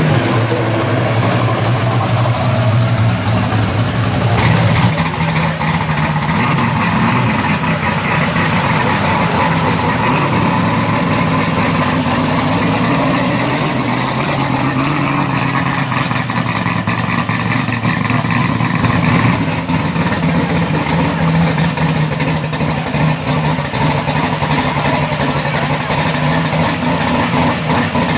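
Engine of a modified Fox-body Ford Mustang GT running loudly at low revs as the car creeps along, its pitch staying mostly steady.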